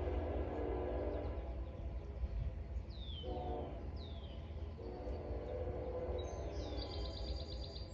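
Long Island Rail Road diesel train sounding its air horn: a long blast that stops about a second and a half in, a short blast just past the middle, then another long blast of about two seconds, over the low steady rumble of the train. A few birds chirp high above it, with short falling calls.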